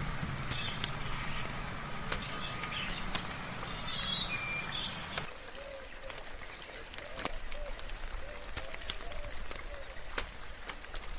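Birds chirping over light rain, with scattered drops ticking. About halfway through, a low hum drops away and a run of short, low, repeated calls follows.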